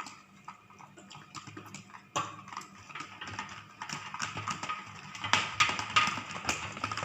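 Glue slime being stirred in a container with slime activator mixed in: irregular sticky clicks and taps, getting louder and busier about five seconds in.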